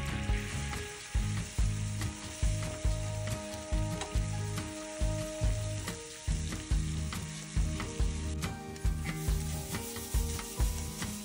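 Flour and melted butter sizzling in a nonstick frying pan as a wooden spoon stirs them into a roux. Background music with a steady beat plays over it.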